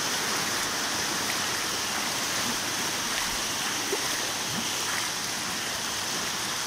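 Steady rushing, splashing water noise from feet wading through shin-deep floodwater.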